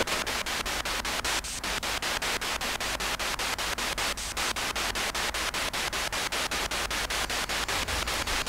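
Radio-sweep ghost box hissing static through a small amplifier speaker. The static is chopped into rapid, even pulses, about seven a second, as the receiver scans from station to station. This is the scanning noise that is listened to for voice-like answers in a transcommunication session.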